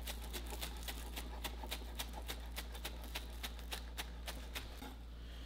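Chef's knife rapidly chopping green onions on a cutting board: quick, even knocks of the blade against the board, about four a second, stopping near the end.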